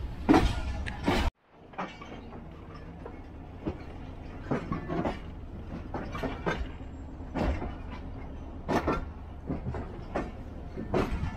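Passenger train rolling slowly over rail joints and points as it tries to pick up speed: irregular heavy metallic clanks, like a hammer striking heavy iron, over a steady low rumble.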